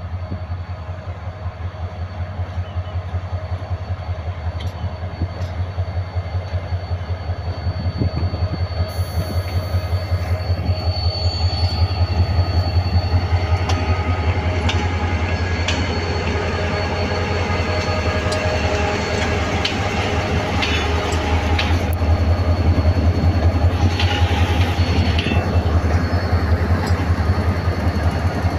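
HGMU-30 diesel-electric locomotive pulling an express train away from a station: a deep throbbing engine rumble that grows louder over the first dozen seconds as it draws close and passes, with wheels clicking over the rail joints in the second half.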